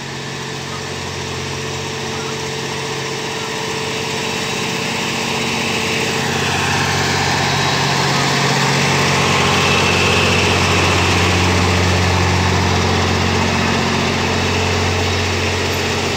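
Diesel engine of a PBR-400 ballast regulator running steadily as the track machine travels along the rails. It grows louder as the machine draws alongside, is loudest about ten seconds in, and eases off a little as it moves away.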